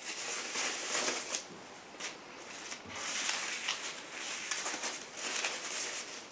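Crinkling and rustling of soft packaging wrap being pulled open and handled to free plastic dash trim frames. It comes and goes unevenly, with a brief lull about two seconds in.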